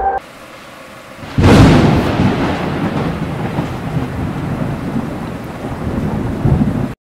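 Thunderstorm: light rain, then a sudden loud thunderclap about a second and a half in, followed by rumbling thunder over steady heavy rain. It cuts off abruptly just before the end.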